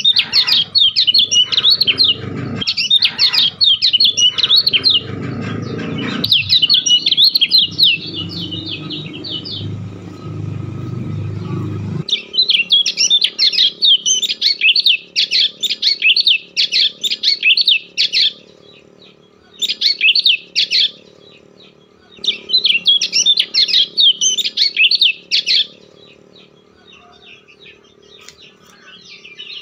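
A bird chirping in long bouts of quick, high notes, broken by short pauses and trailing off near the end. A low rumbling noise underneath for about the first twelve seconds cuts off abruptly.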